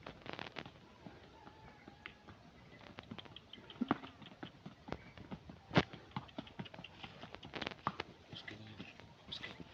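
Hooves of a ridden horse walking on a dry dirt track: irregular clip-clop knocks, with sharper ones about four and six seconds in.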